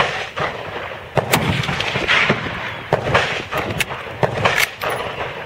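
Military rifle being fired prone: a series of sharp gunshot reports spread over several seconds, the loudest right at the start.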